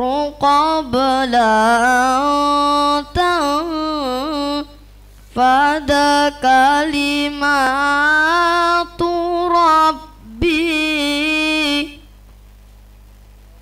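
A boy reciting the Qur'an in melodic qiraah style into a microphone: long ornamented phrases with sliding pitch, broken by a short pause for breath about five seconds in. The recitation stops about twelve seconds in, leaving a faint steady hum.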